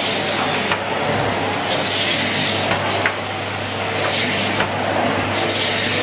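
Numatic Henry Blue canister vacuum cleaner running steadily while sucking up spilled oatmeal through its wand and hose, with a few sharp ticks along the way.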